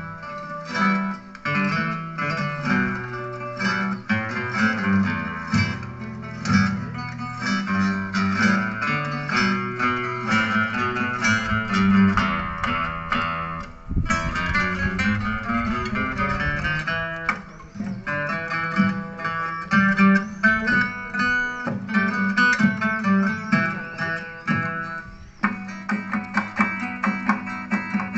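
Ensemble of eight classical guitars playing a Japanese folk song together, many plucked notes sounding at once, with brief breaks between phrases about halfway through and again near the end.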